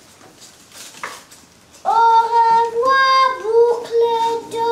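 A young girl singing long held notes, starting about two seconds in. The pitch steps up briefly and then settles back to the first note.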